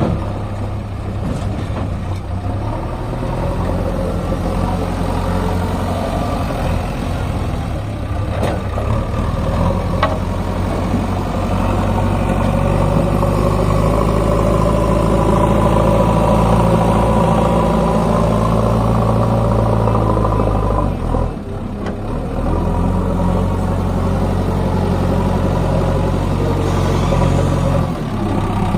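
Diesel engine of a backhoe loader running while it digs and loads mud. The engine note rises and falls as the hydraulics take load, and dips briefly about two-thirds of the way through.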